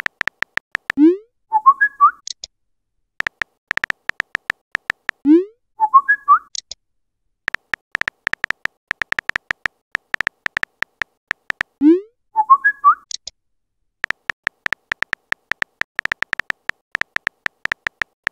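Phone-keyboard typing clicks in quick runs, each run followed by a message-sent sound effect: a short rising swoop and a few bright chirps. The send sound comes three times.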